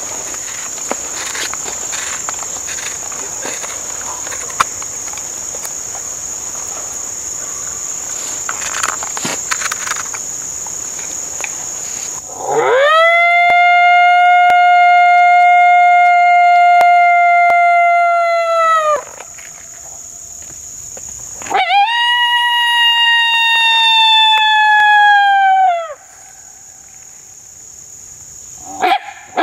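Insects buzzing steadily, then two long coyote howls blown on a hand-held mouth howler call. Each rises into a steady held note and drops off at the end; the second is a little higher and shorter, and a third begins at the very end. They are locator howls, meant to make coyotes howl back.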